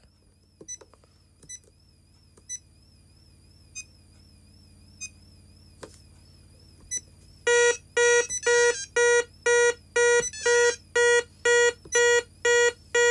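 Orisec alarm panel beeping: a few faint single key-press beeps, then, about seven and a half seconds in, a loud, even pulsing tone at about two beeps a second.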